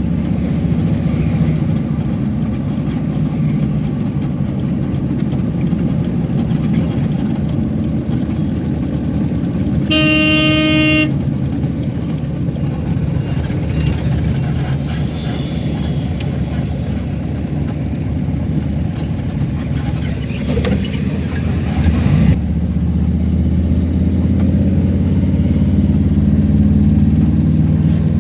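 Steady low rumble of a car driving in traffic, with a vehicle horn honking once for about a second, about ten seconds in.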